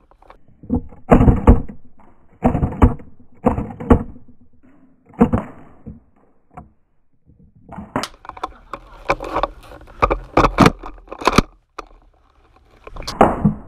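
Four dull, scuffing thuds in the first half, then from about eight seconds in a rapid run of sharp cracks and knocks: game pistols firing in close quarters.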